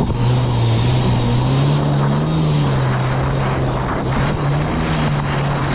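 Kawasaki Ultra 310 jet ski's supercharged four-cylinder engine running hard through ocean chop, its pitch rising and falling as the throttle and hull load change over the waves. A loud rush of wind and water runs under the engine.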